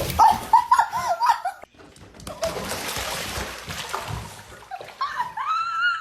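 A dog vocalising in a quick run of short rising-and-falling yelps, then about two seconds of splashing water, then a long rising whine near the end.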